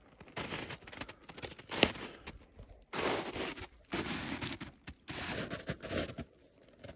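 Footsteps crunching in packed snow, about five steps, with one sharp crack about two seconds in.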